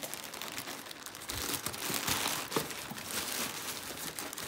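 Plastic courier mailer bag crinkling and rustling as hands pull it open and reach into the packing inside.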